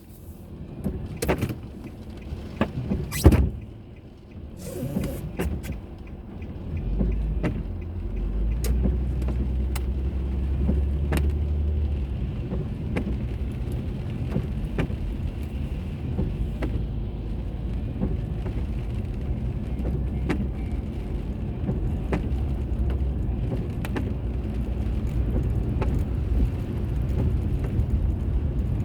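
A car heard from inside, at the start of a drive: a few clicks and one sharp knock in the first few seconds, then from about seven seconds in the steady low hum of the engine and tyres as it drives off.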